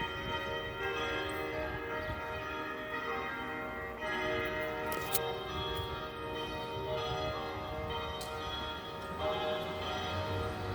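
Church bells ringing, several bells sounding together with their tones ringing on and overlapping, and fresh strikes about four seconds in and again near the end.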